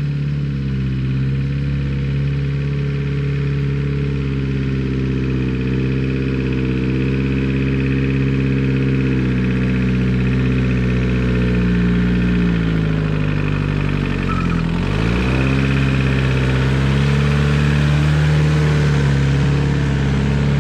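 1949 Willys CJ3A Jeep engine running steadily while driving along a woods trail; about thirteen seconds in the engine speed falls and then picks back up.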